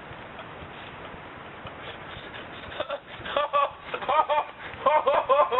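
High-pitched laughter in short, quick bursts, starting about three seconds in, over a steady hiss.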